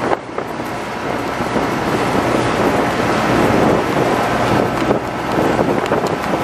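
Wind buffeting the microphone on a small fishing boat underway, over a steady engine drone and water rushing past the hull.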